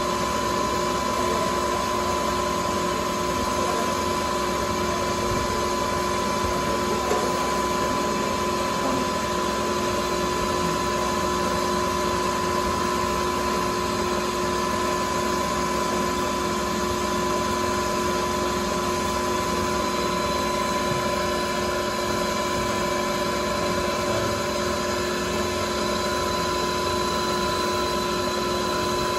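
Metal lathe running steadily with its chuck spinning, a constant whine of several held tones, while a hand-fed tool takes a taper cut on the compound rest.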